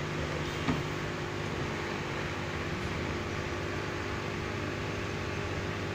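Steady whirring of a fan with a low hum under it, and a small click just under a second in.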